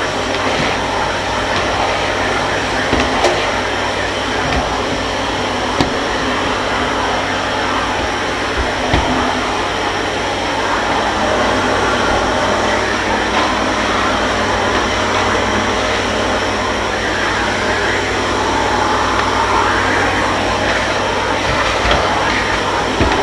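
Kärcher MV 6 P Premium wet-and-dry vacuum cleaner running steadily, with a few short knocks and clatters over its noise.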